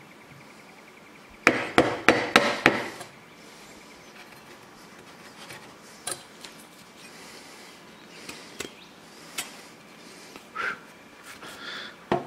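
Machete blade chopping and carving into a wooden stick rested on a wooden post: a quick run of about five sharp knocks a couple of seconds in, then scattered lighter cuts and clicks.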